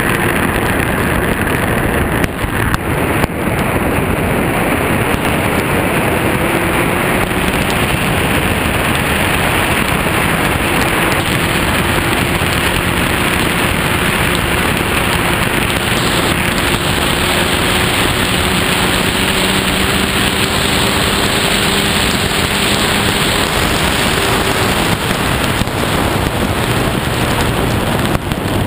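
Onboard sound of a Lotus 61 Formula Ford at speed on a flooded track: a dense rush of wind, rain and tyre spray on the camera's microphone covering the engine's steady note, which falls in pitch near the end as the car slows.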